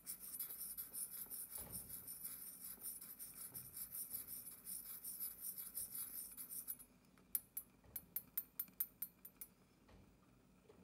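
Tiny metal spoon rubbing around the bottom of a miniature wok, a dense scratchy crackle for about seven seconds that stops suddenly, then a quick run of about ten light clicks.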